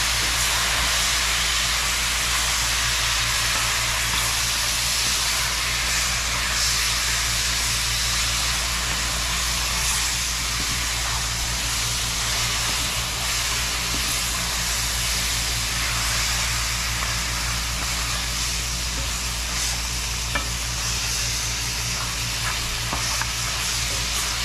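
Curried duck frying in a pot, cooked down nearly dry and sticking to the bottom, giving a steady sizzle with a low hum underneath.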